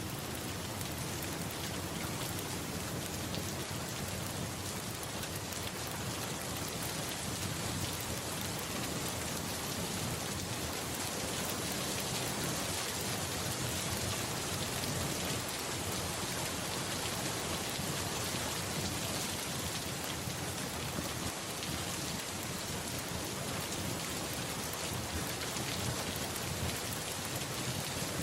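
Steady rain falling, an even hiss of drops on a surface with no letup.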